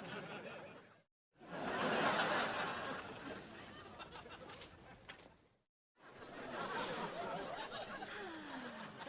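Sitcom studio-audience laugh track in the Disney Channel style: separate recorded clips of crowd laughter played back to back with dead silence between them. One clip ends about a second in; a new burst of laughter swells, peaks and dies away over a few seconds; after a short gap another laugh starts about six seconds in and carries on.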